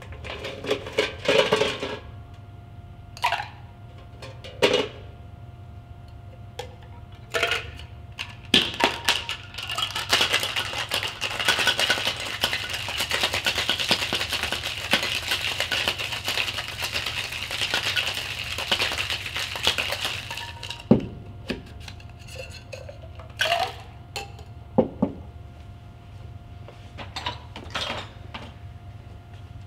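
Ice cubes clinking as they are scooped and dropped into glass and tin, then a metal cocktail shaker rattling hard with ice for about ten seconds. After that come a few sharp metallic knocks and clinks as the shaker tins are set down and knocked apart.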